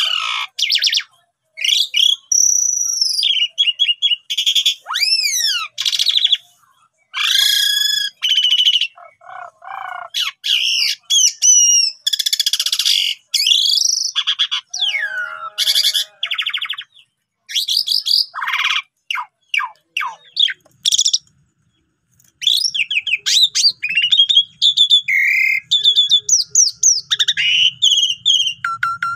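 Asian pied starling singing in full voice: a loud, varied run of whistles, rising and falling glides, chatters and rapid rattling notes, broken by short pauses and one longer pause a little after the middle.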